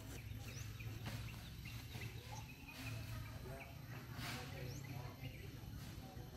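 Faint outdoor bird calls: scattered short chirps and calls over a steady low hum.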